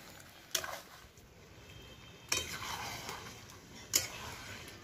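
Metal spatula stirring chicken in a thick masala in a metal kadai, knocking against the pan three times, about a second and a half to two seconds apart, over a low sizzle.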